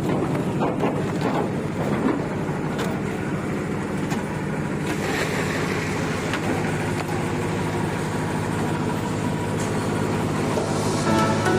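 Construction machinery engine at a concrete slab pour running steadily, with a few knocks in the first seconds. Music comes in near the end.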